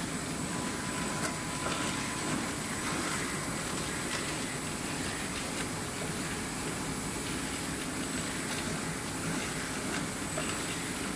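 Wen Chyuan FR108L film laminator running: a steady mechanical whir and hiss with a few light clicks and a faint high whine.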